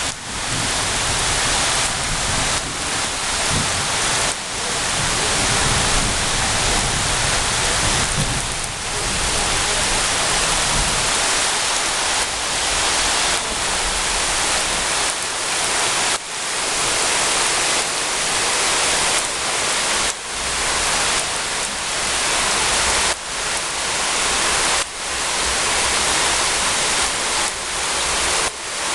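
Heavy rain pouring down, a dense steady hiss. Its loudness dips sharply every few seconds and creeps back up.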